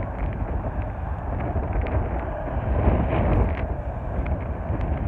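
Wind buffeting the microphone: a rough, low rumble that swells about three seconds in, with a few faint clicks over it.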